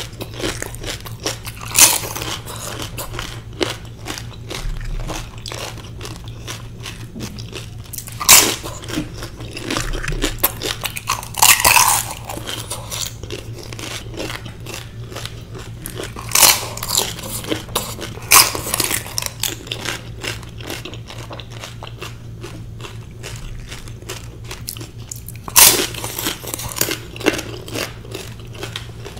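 Pani puri being eaten: the hollow fried puri shells crunch loudly between the teeth about six times, with quieter chewing and small crackles in between.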